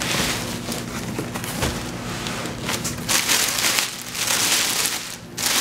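A clear plastic liner bag crinkling and rustling as it is handled and pulled open inside a cardboard box of frozen beef marrow bones.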